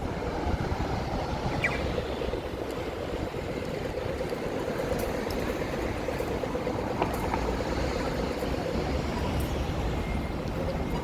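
City street traffic noise: a steady rumble of passing vehicles, with an engine hum holding for several seconds in the middle.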